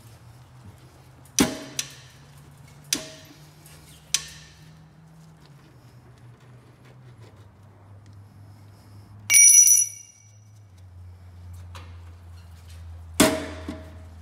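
Chrome slip-on muffler clanking against the motorcycle's exhaust pipe as it is worked onto the pipe by hand. Four sharp metallic knocks with ringing come in the first four seconds, then a brief high metallic ring a little after halfway, and another clank near the end.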